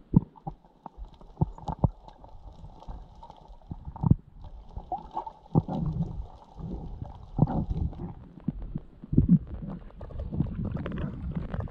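Muffled underwater sound picked up by a submerged camera: irregular low thumps and knocks with bubbly gurgling, and faint crackling above them.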